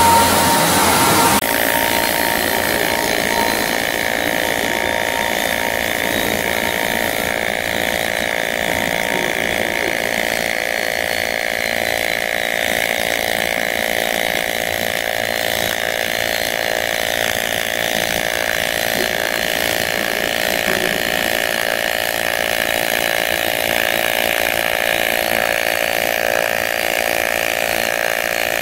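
AC TIG welding arc on an aluminium pipe, a steady buzzing hum that settles in about a second and a half in.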